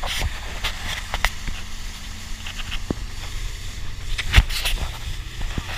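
Motorboat engine running steadily at speed, under the rush of water and spray along the hull and wind on the microphone. A few sharp knocks break through, the loudest about four seconds in.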